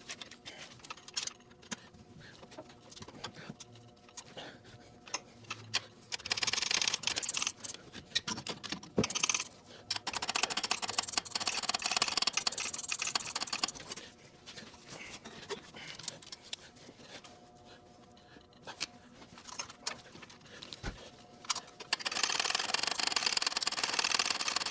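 A 3/8-inch ratcheting wrench clicking in several runs of rapid ticks as small bolts are backed out of a mower's guard plate, with scattered knocks and clinks of metal tools in between.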